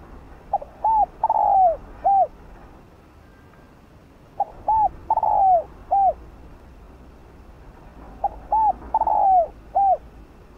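Spotted dove (Streptopelia chinensis) cooing: three phrases about four seconds apart, each of four notes, the third drawn out and falling. The song of a decoy dove, the kind used to lure wild doves and to set newly caught birds cooing.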